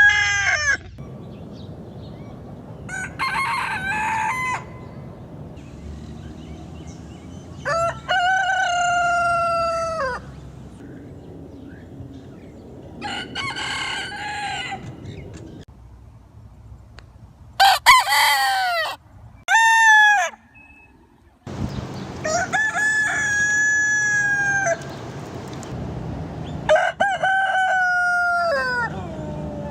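Roosters crowing one after another, about seven crows, each a drawn-out cock-a-doodle-doo of one to three seconds that drops in pitch at the end. The crows come from different roosters, with a low background hiss between them.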